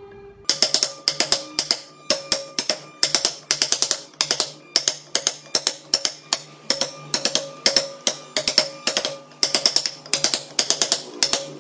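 Carving chisel struck with a mallet into a wooden board, in quick bursts of several sharp taps with short pauses between them, starting about half a second in.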